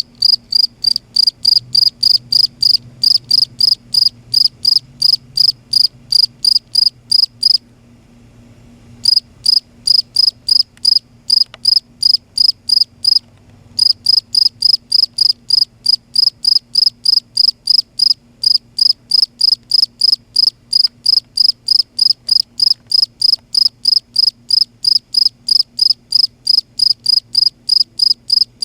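A cricket calling close up: loud, evenly spaced chirps, about three or four a second. It breaks off briefly twice, about a quarter and nearly halfway through.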